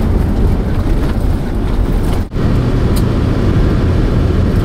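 Steady low rumble of engine and tyre noise heard from inside a 4x4 campervan's cabin while driving on an outback road. The noise breaks off for an instant about two seconds in, then carries on.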